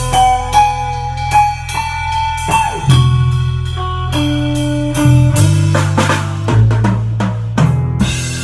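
A band jamming freely on guitar, bass and drum kit: the guitar plays held, bending lead notes over a low bass line, and the drums keep a steady beat.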